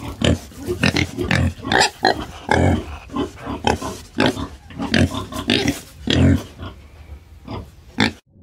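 Wild boar grunting over and over in short rough grunts, about two a second, which stop abruptly near the end.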